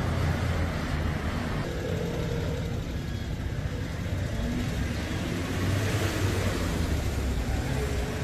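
Steady low rumble of background street traffic, with no single distinct event standing out.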